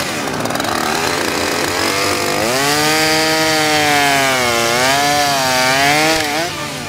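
Petrol chainsaw cutting through a fallen tree trunk, its engine note dipping and recovering as the chain bites, then falling away near the end as the cut eases off.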